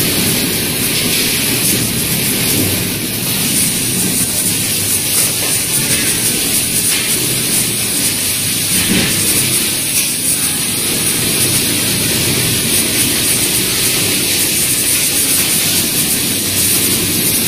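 Steady, loud din of a sewing workshop floor with machines running, hiss-like and without a clear rhythm. A thin high whine joins in about three seconds in.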